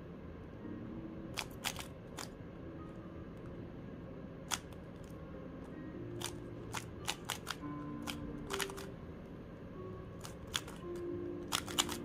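MoYu RS3M plastic 3x3 speedcube being turned by hand: its layers click at irregular times, singly and in quick runs of two or three. Background music plays underneath.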